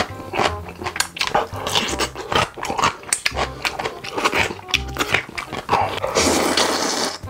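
Close-miked eating sounds: repeated sharp chewing and crunching clicks, with a louder continuous noisy stretch of about a second near the end, over background music with a steady bass beat.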